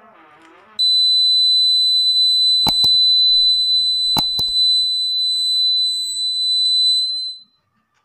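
A piezo buzzer on a homemade clothespin door alarm sounds one steady, high-pitched tone. Opening the door has set it off by closing the clothespin switch. The tone starts about a second in, runs unbroken for about six seconds with a few knocks in the middle, and cuts off suddenly near the end.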